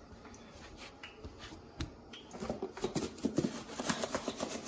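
Squirrel meat pieces being shaken by hand in a lidded plastic container of dry breading: a quick run of rattling knocks that starts about halfway through.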